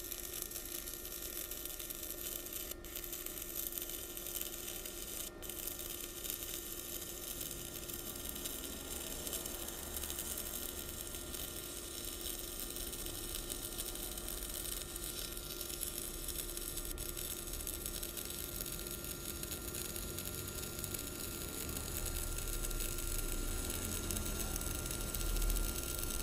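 Stick-welding arc crackling and sizzling steadily as a coated electrode is run along a steel bar, fed by a Lucky Star MIG-285L inverter welder in stick mode. A steady faint hum sits under the crackle, which grows a little louder near the end.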